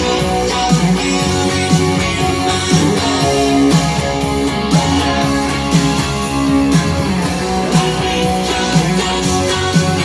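Electric guitar, a striped Frankenstrat-style guitar, played with fast picked strumming of chords and riffs.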